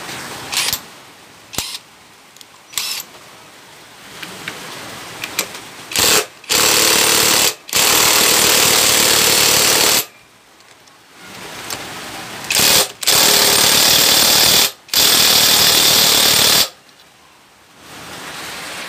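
Power impact wrench run in four loud bursts of one to two seconds, with a few short blips before them, tightening the castle nuts on a motorcycle engine.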